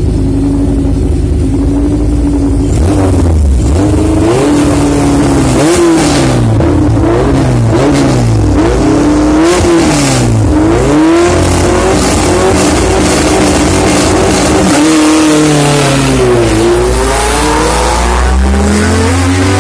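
Drag car engine with a loud open exhaust, idling, then revved hard in a series of about eight quick throttle blips that rise and fall. The revs settle and swing up and down again more slowly near the end.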